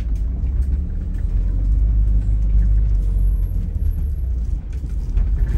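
Light-truck motorhome driving along a country road, heard from inside the cab as a steady low rumble of engine and tyres.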